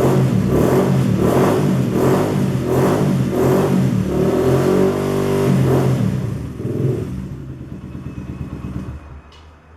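Suzuki Yes 125's single-cylinder four-stroke engine through a Roncar Aluminium SS aftermarket exhaust, revved in quick repeated throttle blips, then held steady briefly, blipped once more about seven seconds in, and dropping away near the end.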